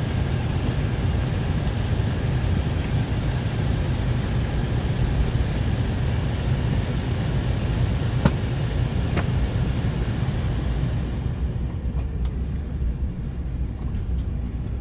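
Steady cabin noise inside an Embraer 190 airliner: a low rumble with an airy hiss over it. The hiss fades away about eleven seconds in, and two short clicks come about a second apart just past the middle.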